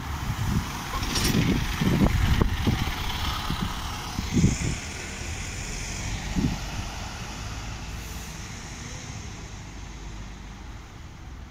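Optare Solo SR single-deck bus pulling away and driving off, its engine and tyre noise loudest in the first few seconds and fading gradually as it leaves. Gusts of wind buffet the microphone, strongest about four and a half seconds in.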